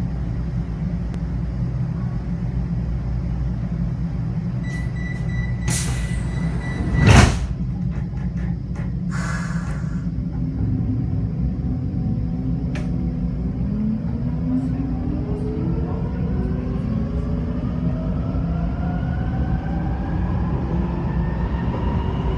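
Vienna U-Bahn type U11 train at a platform, heard from inside: a warning tone, then the sliding doors slam shut about seven seconds in, the loudest sound, followed by a short hiss. The train then pulls away, its traction motors whining in several tones that rise steadily in pitch as it gathers speed, over a constant low rumble.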